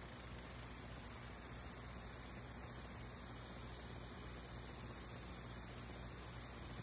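Kubota M6040 tractor's diesel engine running at a steady speed while pulling a disc harrow, heard as a low, even hum under a steady high hiss.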